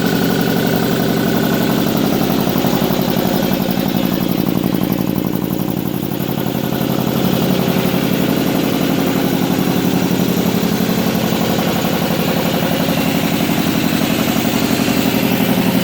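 Speedaire 10 HP reciprocating air compressor, belt-driven by a 10 HP GE electric motor, running and pumping steadily with a fast even chugging of its pistons.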